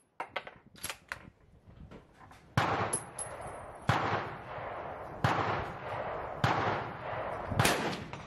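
Rifle shots from a US Model 1896 Krag–Jørgensen in .30-40 Krag fired at a steel gong. A few light clicks in the first second are followed by five sharp reports about a second and a quarter apart, each trailing off over about a second.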